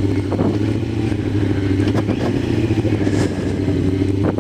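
Yamaha R6's inline four-cylinder engine running at a steady pitch while the bike is ridden, heard from the rider's helmet.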